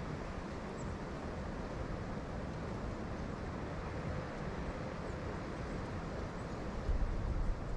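Steady rushing of water pouring through a spillway, with wind starting to buffet the microphone in low gusts near the end.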